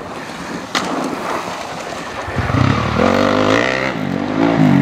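Dirt bike engine revving hard as the bike climbs a steep dirt hill. About two seconds in, the engine comes in loud, its pitch rising, dipping briefly and rising again.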